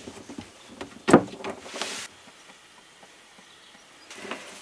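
Plastic plumbing fittings and clear tubing being handled and worked under a sink: small clicks and knocks, one sharp click about a second in followed by a brief hiss, then a few more clicks near the end.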